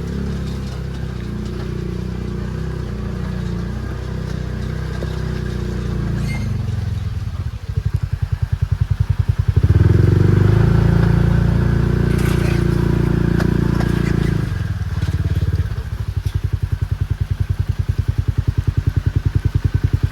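Ranger's engine running under way, getting louder about ten seconds in and easing back a few seconds later. From about halfway on, a fast, regular pulsing beats through it. The owner believes the rear axle is broken and making a popping noise. The engine sound cuts off right at the end.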